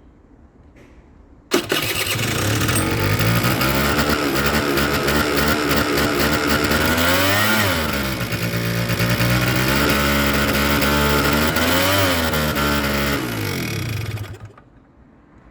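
Kymco Super Fever ZX 50cc two-stroke scooter engine starting up about a second and a half in and running with its exhaust pipe just refitted, revved briefly twice, then shut off near the end.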